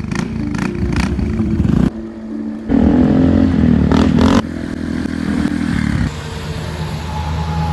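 Motor scooter engine running and pulling away, in a string of short clips that cut abruptly from one to the next every second or two.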